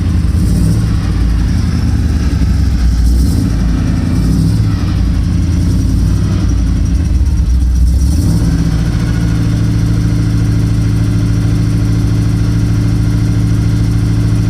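A 454 big-block V8 in a 1984 Chevrolet K5 Blazer running while it warms up. Its sound is unsteady at first, then about eight seconds in it settles into a smooth, steady idle.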